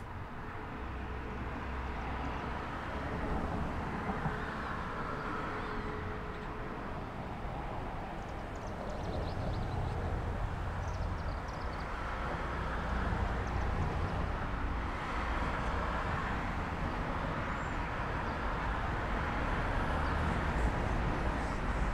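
Outdoor street ambience: traffic noise with a low rumble that slowly swells and fades as vehicles pass, and a few faint short high chirps now and then.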